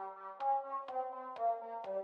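Background music: held brass-like chords that change on a steady beat, with a sharp tick on each beat about twice a second.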